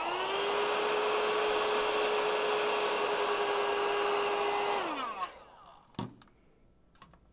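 Handheld heat gun running: its fan motor spins up at the start, blows steadily with a steady whine for about five seconds while it shrinks a solder-sleeve shield splice on shielded cable, then switches off and winds down. Two light knocks follow as the gun is set down.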